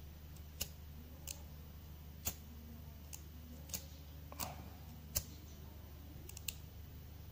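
Ronson Mini Rover pocket lighter's metal cap and mechanism clicking as it is worked by hand, opened and snapped shut: about eight sharp clicks at irregular spacing, two in quick succession near the end.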